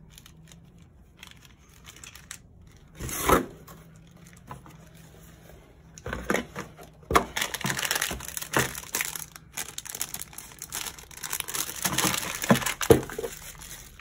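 Plastic packaging bags crinkling as hands handle bagged accessories. It is mostly quiet at first, with one short loud crinkle about three seconds in, then near-continuous crinkling with sharp crackles from about six seconds on.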